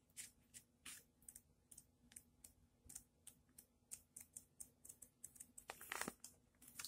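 Pages of a paperback book being flipped and riffled: a faint, irregular string of soft flicks, with a longer rustle about six seconds in as the book is closed.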